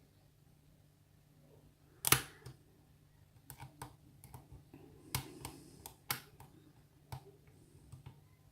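Lock picks working inside a pin-tumbler lock cylinder: small, irregular metallic clicks and taps as the hook picks at the pins under tension, with one sharp click about two seconds in, louder than the rest.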